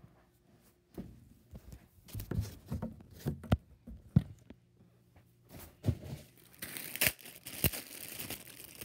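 Scattered knocks and bumps as a new PC tower is handled, then the plastic bag over the case crinkling and rustling as it is pulled off, loudest over the last two seconds.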